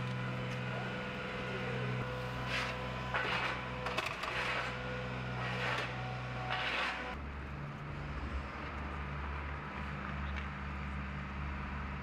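A steady low engine hum with about five short scraping noises between about two and seven seconds in; the hum shifts lower about seven seconds in.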